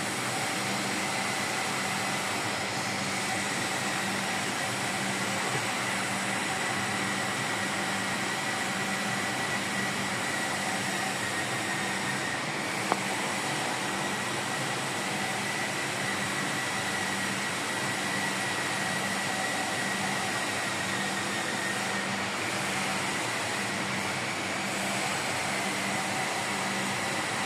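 Steady running noise of a car engine at idle, with a faint constant high whine from the belt-driven accessories, including the AC compressor whose shaft seal is leaking oil. A single short click about halfway through.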